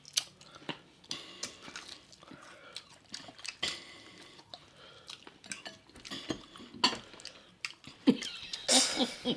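Utensils clinking against dishes, with scattered small clicks and smacks of eating; a louder, rougher burst of sound near the end.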